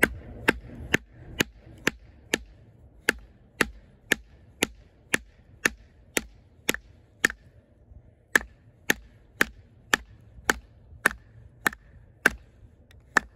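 A baton striking the spine of an Oerla OLK-033RD fixed-blade knife over and over, about two sharp knocks a second. Each blow drives the blade across the grain through a knotted piece of wood (cross batoning).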